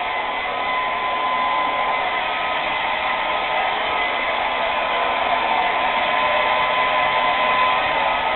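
Handheld hair dryer running steadily on a man's hair: a constant rush of air with a steady motor whine.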